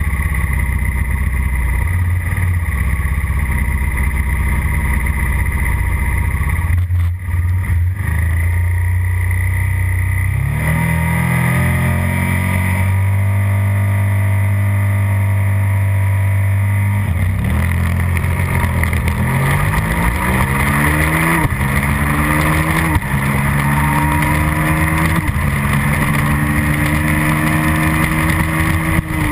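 Suzuki SV650 V-twin racing motorcycle heard onboard. It runs steadily, is held at higher revs about a third of the way in, then pulls away about 17 seconds in. It climbs through the gears, its pitch rising and dropping back at each of several upshifts.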